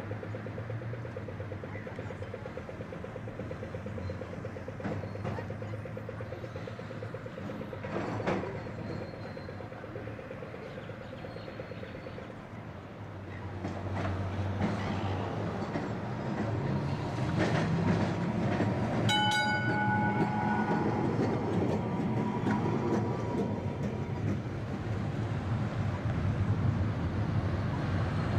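A rail vehicle running on the track, growing louder from about halfway through, with a short ringing tone of several pitches about two-thirds in.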